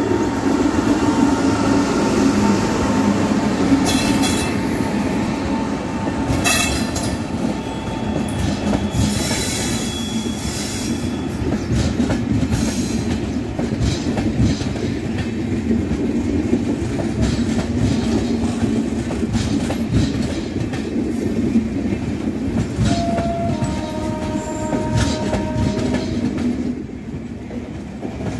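WAP-7 electric locomotive passing close by, then a long line of passenger coaches rolling past with a steady rumble and wheels clicking over the rail joints. A few brief steady tones come in about three-quarters of the way through.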